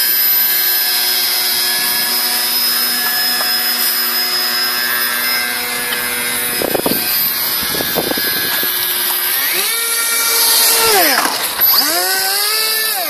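Homemade radio-controlled airboat's electric motor and air propeller whining at a steady pitch. Near the end the pitch climbs, drops sharply and climbs again as the throttle is worked.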